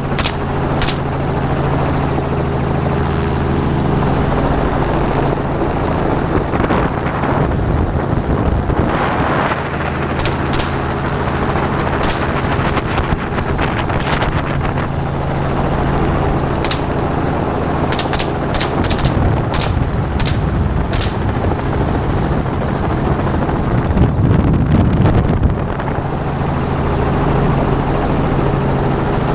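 Helicopter's rotor and engine droning steadily, heard from inside the cabin with the door open, with rushing wind noise and scattered short clicks.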